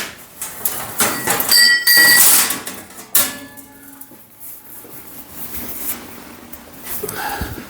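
Clanks and scrapes of a freshly plasma-cut 16-gauge steel sheet being handled, with a bright metallic ring about two seconds in and sharp knocks near the start and about three seconds in.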